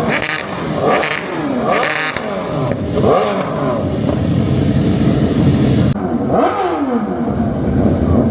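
A car engine revved hard again and again, its pitch climbing and falling about once a second, then held steady for a couple of seconds in the middle before more quick revs.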